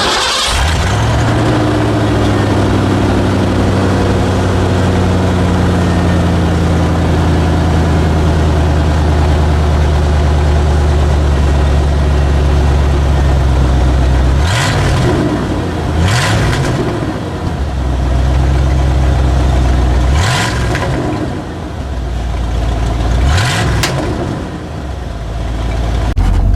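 A car engine catches and runs loudly and steadily, then revs up about four times in the second half as the vehicle pulls away and accelerates.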